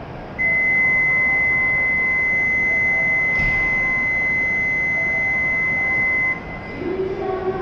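Shinkansen platform departure buzzer: one steady, high electronic tone held for about six seconds, then cut off sharply, signalling that the train's doors are about to close for departure.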